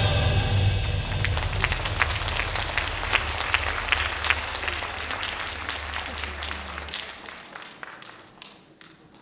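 Theatre audience applauding as the dance ends, the clapping thinning and fading away. Under it, a low held note at the end of the music dies out about seven seconds in.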